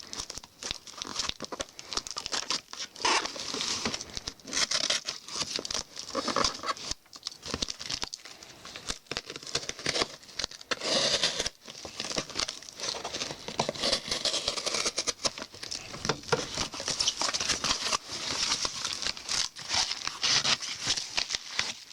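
A shipping package being cut open with a small knife and torn open by hand: irregular crinkling, rustling and tearing of the packaging, with scrapes and small knocks, and one longer tearing sound about halfway through.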